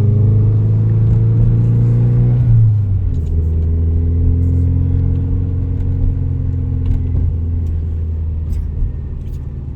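Engine of a Subaru 22B replica car running under way, a steady drone; about two and a half seconds in its pitch drops, then it runs on steadily and eases off slightly near the end.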